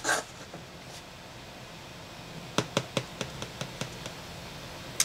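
A quick run of about seven light clicks and taps about two and a half seconds in, with one more near the end, from the keyboard's box and packaging being handled, over a faint steady hum.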